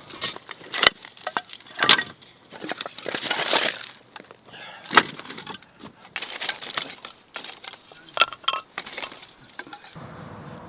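A series of irregular knocks, clicks and clinks from hard objects being handled, several sharp and loud; a steady faint hiss begins near the end.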